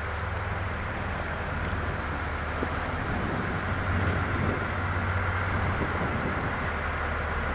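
JR East KiHa 40 diesel railcar's engine running with a steady low drone, growing slightly louder about halfway through.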